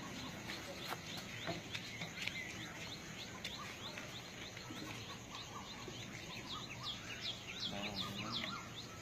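Outdoor ambience of small birds chirping in many quick, short notes over a steady low background noise.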